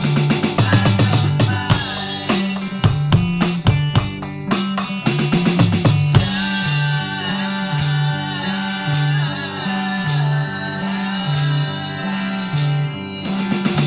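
Drums played on an electronic drum kit along with a song's backing track of guitar and bass. A busy drum fill comes in the first few seconds, then a steady beat with a sharp cymbal-like hit about every second and a quarter.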